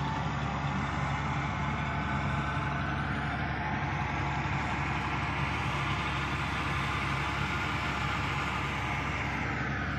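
John Deere 5105 tractor's three-cylinder diesel engine running steadily, heard from the operator's seat.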